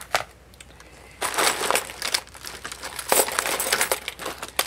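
Hands rummaging through packaged craft embellishments: plastic packaging crinkling and rustling in uneven spurts from about a second in, with a few sharp clicks of small pieces knocking together.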